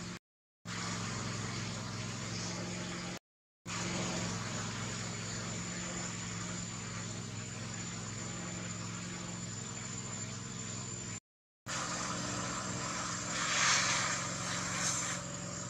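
Steady motor-like hum with a thin high whine over an even hiss, dropping out to silence three times for a moment; a louder hissing swell comes about two seconds before the end.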